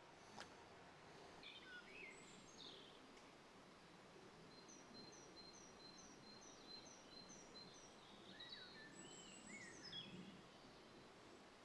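Faint woodland birdsong: several birds chirping and trilling, one giving a regular series of short high double notes about three a second through the middle. A single faint click comes just after the start.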